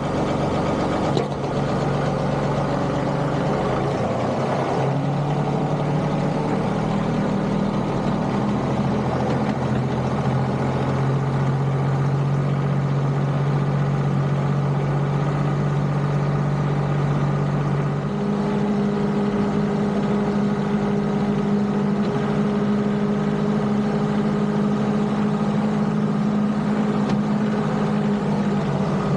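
John Deere 2038R compact tractor's three-cylinder diesel engine running steadily, its note stepping to a different engine speed about two-thirds of the way through.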